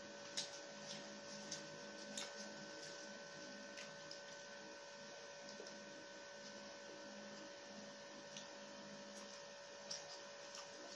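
Steady electrical hum over quiet room noise, with a few brief soft clicks and rustles from the paper-wrapped rolls being handled and eaten.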